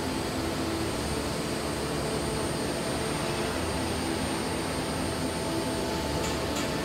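Steady factory machinery drone: an even rushing noise with a low hum and a thin high whine, without letting up.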